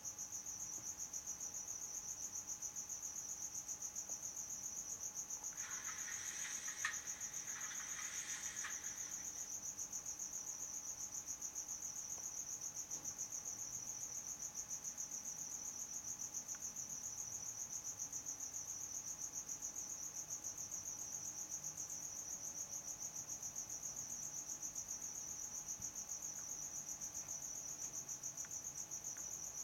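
Steady, high-pitched pulsing trill like a chirping cricket, unbroken throughout. About six seconds in there is a brief hissing rustle with a single click, lasting a few seconds.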